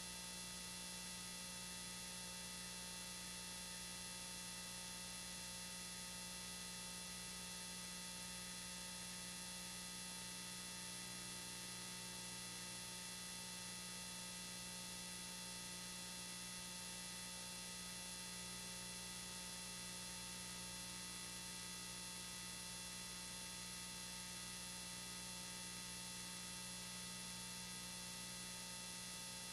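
Steady electrical hum and hiss with a set of constant whining tones, unchanging throughout: a faulty home-video soundtrack that holds only noise in place of the recorded sound.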